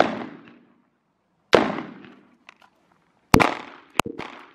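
Three 9mm pistol shots from a Glock 19 Gen 5, about a second and a half to two seconds apart, each with a short echo trailing off. A shorter, sharper crack follows about 4 s in.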